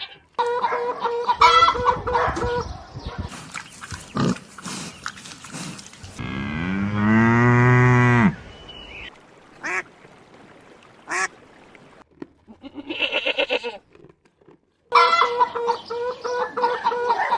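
Farmyard animal calls spliced one after another: repeated honking and quacking of domestic waterfowl, with one long, low cow moo about six seconds in.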